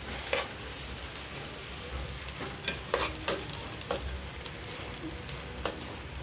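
A spoon stirring lentils, tomato and mint frying in a pan, over a steady sizzle. About half a dozen sharp clacks of the spoon against the pan, bunched around the middle.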